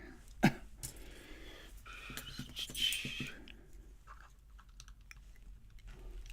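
Small metal clicks and rattles of a padlock and hand tools being handled while the lock is taken apart. There is one sharp click about half a second in, a patter of irregular clicks over the next few seconds, then only faint ticks.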